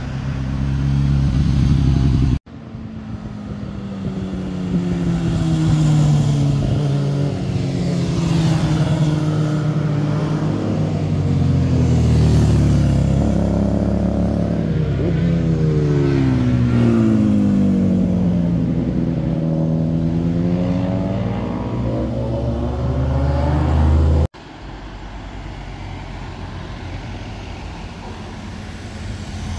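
Motorcycle engines passing through a hairpin bend one after another, each rising and falling in pitch as the rider accelerates and changes speed. The sound cuts abruptly about two seconds in and again near the end as one ride gives way to the next.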